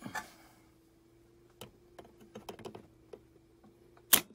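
Novritsch SSG24 spring-powered bolt-action airsoft sniper rifle: a few faint clicks, then a single sharp shot a little after four seconds in, firing a 0.45 g BB through a chronograph.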